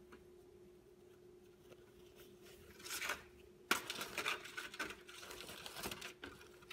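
A dried, dye-soaked shibori scarf being pulled off its wrapping pole and opened out by hand. Fabric rustles from about three seconds in, with one sharp click a little past halfway, over a faint steady hum.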